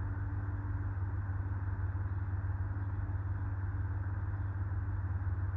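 Car engine idling steadily, an even low hum.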